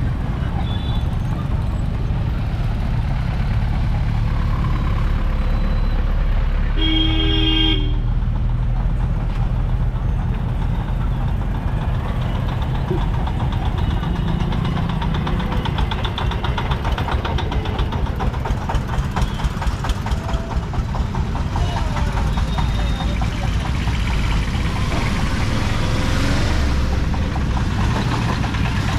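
Road traffic at a level crossing: motorcycles and small vehicles running past with a steady engine rumble. A vehicle horn honks once, for about a second, around seven seconds in. Past the middle, a nearby engine putters rhythmically for a few seconds.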